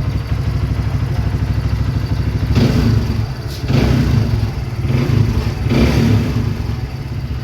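Kawasaki Barako II's single-cylinder four-stroke engine running just after starting on a single kick, and blipped several times from about two and a half seconds in. The engine now starts and runs after an idle-speed adjustment that cured its hard starting.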